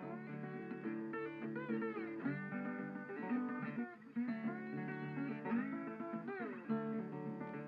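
Background music: plucked guitar playing a melody, with several notes sliding or bending in pitch.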